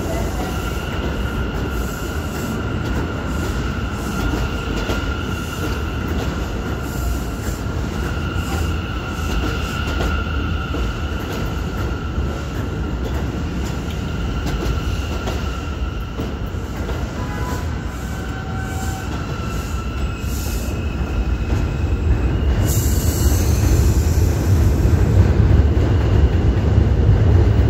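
NYC Subway R179 train pulling out of an elevated station, its wheels rumbling on the rails under a high steady squeal that holds for most of the time. About 22 seconds in there is a brief hiss, and the low rumble grows louder near the end as the last car passes.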